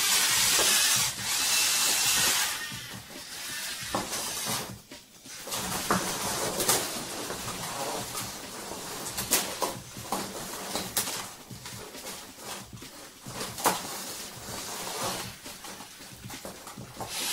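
Lego robots' small electric motors whirring and plastic Lego parts clicking and knocking as two combat robots shove against each other. A loud even whirr fills the first couple of seconds, then sharp clicks and knocks come scattered through the rest.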